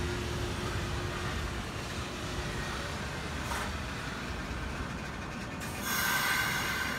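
Nishitetsu 3000 series electric train running out of the station: a steady rumble of wheels on rail, with a faint steady whine that fades out about two seconds in. About six seconds in comes a short, loud, high-pitched screech lasting about a second.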